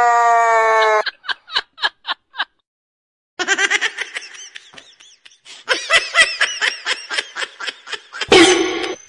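A dog's steady, drawn-out howl cuts off about a second in, followed by repeated short bursts of laughter and a loud cry near the end.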